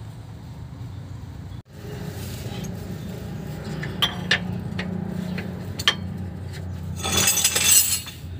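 Steel socket wrench and socket clinking against a bolt and the vehicle's underside as they are fitted and turned to loosen the bolt during transmission removal. There are a few sharp clinks, then a rattling scrape near the end, over a steady low hum.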